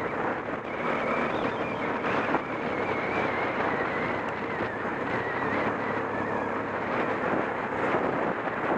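Off-road motorcycle engine running while riding, heavily masked by wind buffeting the microphone, with a faint wavering whine through the middle.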